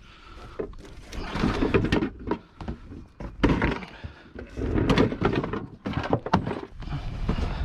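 Irregular thuds, knocks and clatter of scrap appliance parts being handled and packed up, after a quiet first half-second.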